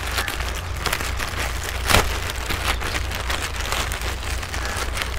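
Clear plastic packaging bag crinkling and crackling as it is handled and the rod inside is drawn out, with one sharper crackle about two seconds in.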